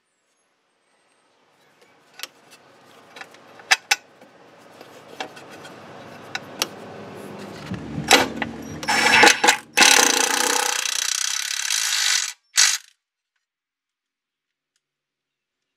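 Bolts on an aluminum A-arm guard being tightened with a ratchet wrench: scattered ratchet clicks and metal clinks over a building rough noise, which turns loud about nine seconds in and cuts off suddenly about three seconds later, followed by one short burst.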